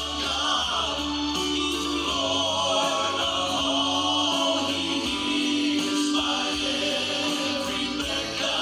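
Voices singing a gospel song together, with long held notes.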